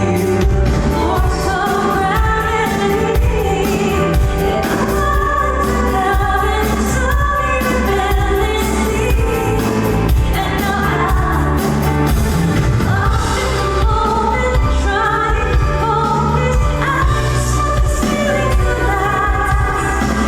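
A woman singing a pop song live over full band accompaniment played through a concert PA, with a steady beat.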